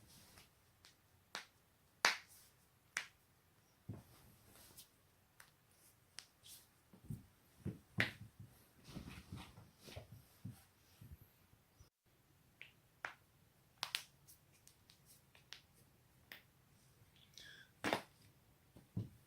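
Neck and back joints cracking: a string of sharp, irregular pops and cracks, a few loud ones among fainter clicks, with soft rustling between them.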